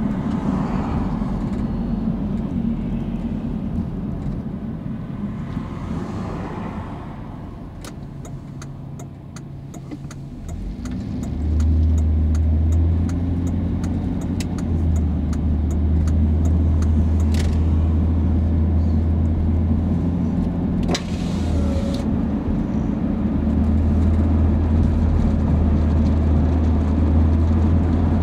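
Car driving, heard from inside the cabin: steady tyre and engine rumble that eases as the car slows about eight seconds in, then a deep drone builds as it pulls away around twelve seconds in. An oncoming car swishes past near the start and another about six seconds in, and a run of light ticks comes between about eight and sixteen seconds.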